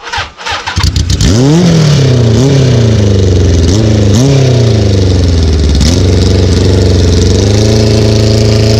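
Kawasaki KZ1000 inline-four motorcycle engine in a racing lawn mower, turned over by its starter and catching about a second in. It is then revved several times, rising and falling in pitch, before holding a steady higher speed.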